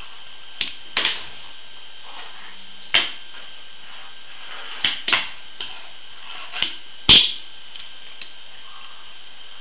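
Tech Deck fingerboard clacking on a wooden board as tricks are popped and landed: about nine sharp clicks and knocks at uneven intervals, the loudest about seven seconds in.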